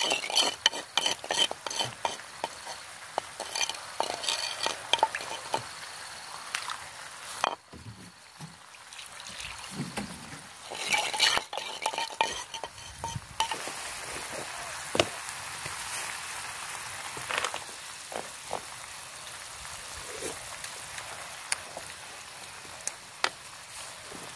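Shrimp in a thick padang sauce sizzling and bubbling in a pan over a portable gas stove. In the first half, and again briefly later, there are many clinks and scrapes of a bowl and utensils at the pan. After that there is a steady simmering hiss with only an odd click.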